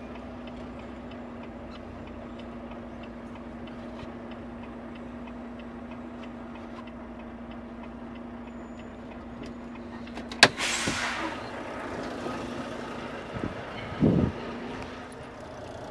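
Semi truck's diesel engine idling, heard from inside the cab, with a faint regular ticking. About ten seconds in, a sharp click is followed by a burst of air hiss, and a shorter low rush comes a few seconds later.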